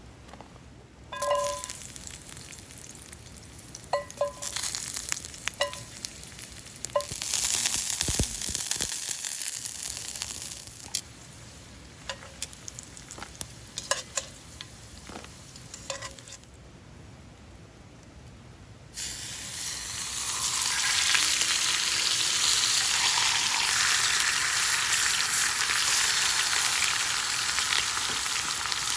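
Metal cookware clinking a few times, then food going into a hot pan about two-thirds of the way in and frying with a loud, steady sizzle.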